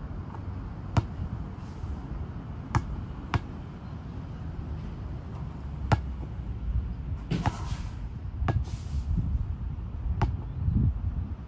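Basketball hitting the hoop and bouncing on an outdoor concrete court: about seven sharp, separate thuds at uneven spacing, the first about a second in, with two brief scraping hisses in the middle and a steady low rumble underneath.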